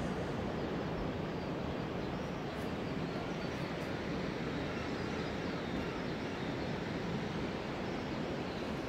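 Steady rushing outdoor noise that stays even throughout, with no distinct events.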